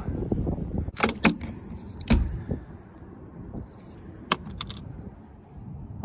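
Several sharp clicks and knocks, spaced irregularly, over a low steady rumble of wind on the microphone.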